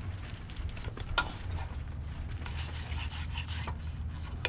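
A sticker being rubbed and smoothed down by hand: irregular scraping and rubbing with a few sharp clicks, the clearest about a second in and near the end, over a steady low hum.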